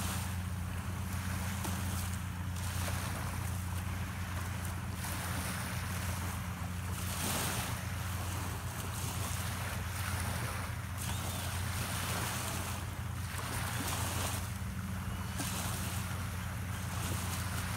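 Small waves washing onto a sandy shore, swelling and easing about every two seconds, with wind buffeting the microphone and a steady low hum underneath.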